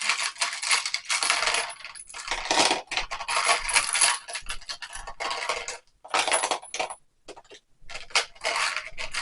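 Small metal tools and sockets clinking and rattling against one another as they are handled and dropped into a toolbox, in clattering stretches with a short pause about six seconds in.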